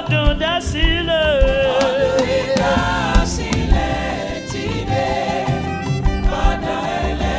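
Live Yoruba gospel worship music: a lead singer with backing vocalists holding and bending a long sung note over a band with drums, the voices easing off after about three seconds while the band plays on.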